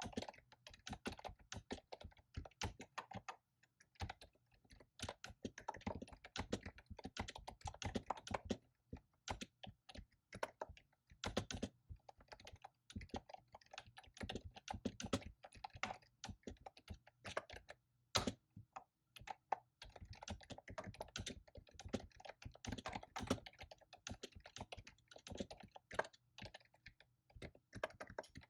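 Fast typing on a computer keyboard: dense runs of key clicks broken by brief pauses, with one sharper, louder keystroke about two-thirds of the way through.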